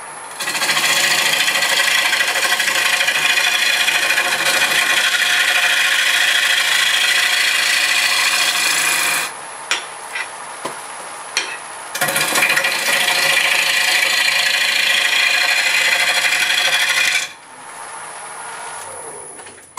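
A gouge shearing green apple wood spinning on a lathe: a loud, steady, rasping hiss of the cut, in two long passes with a lull of a few seconds and a few clicks between them. Near the end the cut stops and only the lathe's quieter running remains.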